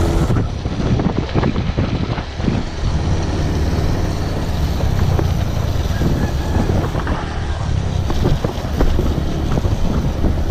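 Motor scooter riding along, its small engine running steadily under many irregular knocks and rattles.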